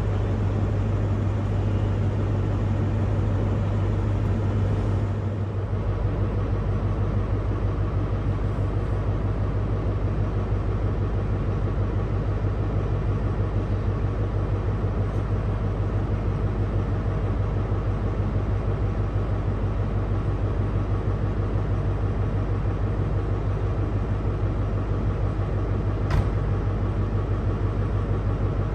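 Diesel railway engine running steadily with a deep, even hum and a rapid pulse, and one sharp click about 26 seconds in.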